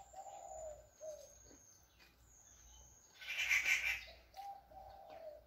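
A dove cooing in two phrases of low, falling notes, one at the start and one near the end. A brief, louder noisy crackle comes about three seconds in.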